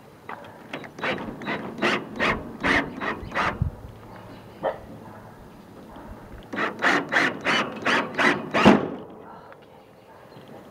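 Cordless drill driving a screw into a metal rain-gutter bracket in short bursts, about three a second. There are two runs of these bursts with a pause of a few seconds between them, and the last burst of the second run is the loudest.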